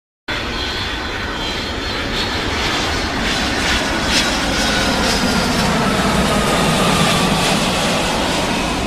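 Airplane engine noise of an aircraft passing over, a steady rushing sound with a whine that slides slowly down in pitch; it starts abruptly.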